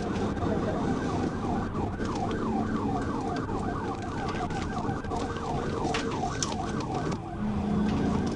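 Police car siren on a fast yelp, a rapid rising-and-falling wail about three times a second, over low vehicle and road noise. The yelp stops about seven seconds in.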